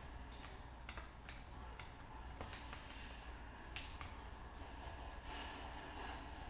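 Faint scattered clicks and light scraping of a screwdriver and small plastic and metal parts being handled as the screws are worked out from inside an airsoft M4's pistol grip. The clicks are spread over the first few seconds, with two stretches of scraping about halfway through and near the end.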